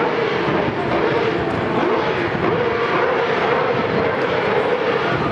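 Honda RA300's 3.0-litre V12 racing engine running at high revs, its pitch rising and falling as the car changes speed, over a steady wash of circuit noise.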